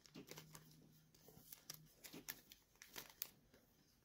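Faint crinkling and small clicks of a soft clear plastic card sleeve being handled as a mini trading card is slid into it, with a few sharper crackles past the halfway point. A faint low steady hum runs through the first couple of seconds.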